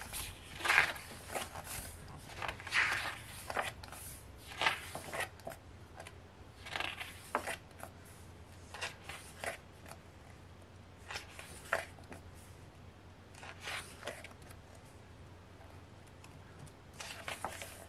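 Pages of a thick photo book being turned one after another: a short paper swish and rustle every second or two.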